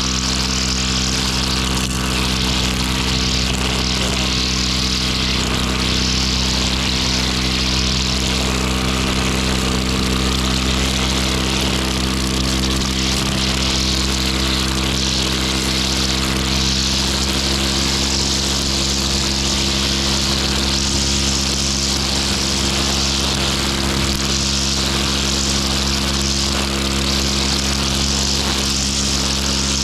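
Grass-cutting machine's small engine running steadily at constant speed, with a high hissing whine over a steady low drone.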